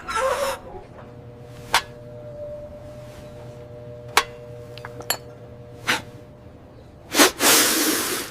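Drinking glasses clinking: four sharp, separate clinks a second or so apart over a faint, steady ringing tone. Near the end comes a loud hissing burst lasting about a second.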